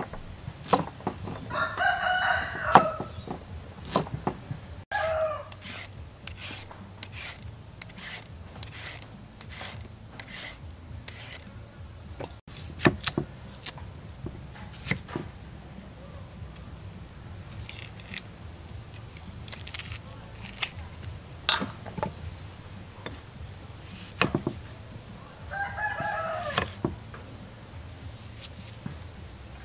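A kitchen knife knocking on a wooden chopping board as a carrot and an onion are cut, with a run of evenly spaced strikes for several seconds and scattered knocks later. A rooster crows near the start and again near the end.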